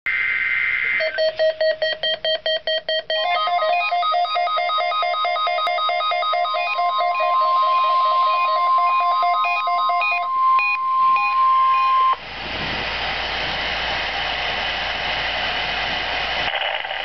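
NOAA Weather Radio test alert. It opens with the tail of a SAME data burst, then a WR-120EZ weather radio starts its rapid alert beeping. About three seconds in, the steady 1050 Hz warning alarm tone joins the beeping and holds until it cuts off abruptly about twelve seconds in. Radio hiss follows.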